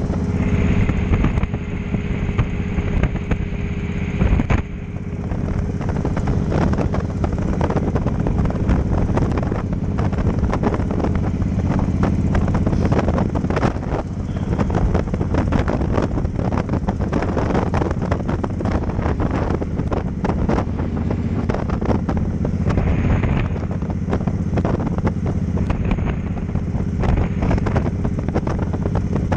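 Cruiser motorcycle engine running at road speed, heavily mixed with wind buffeting the microphone. A steady whine and hiss in the first four seconds cut off abruptly, leaving engine and wind.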